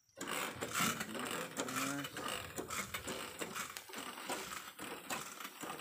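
Hand pruning saw cutting through a cacao tree branch, in rhythmic back-and-forth rasping strokes about twice a second.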